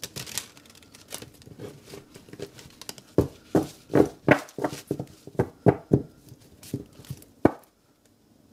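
A deck of tarot cards being shuffled by hand: soft rustling at first, then a run of short card slaps, about two to three a second, from about three seconds in until near the end.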